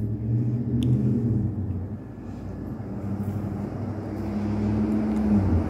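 A low, steady motor hum that dips slightly about two seconds in and then swells again, with a few faint clicks.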